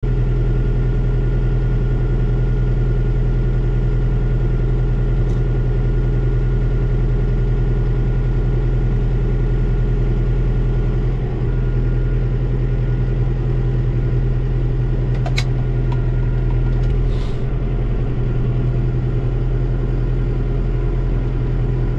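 Tractor engine running steadily, heard from inside the cab, with a couple of faint brief clicks about two thirds of the way through.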